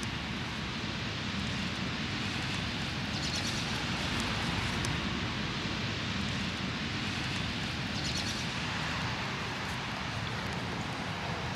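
Steady outdoor hiss of rain with a low rumble on the microphone, and a bird's short rapid trill twice, about three seconds in and again about eight seconds in.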